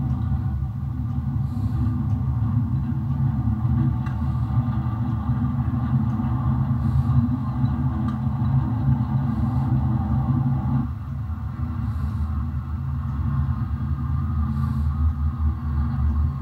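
HO scale model train running, led by a CSX SD70MAC diesel with covered hoppers: a steady low rumble and hum. Some of the higher sound drops away about eleven seconds in.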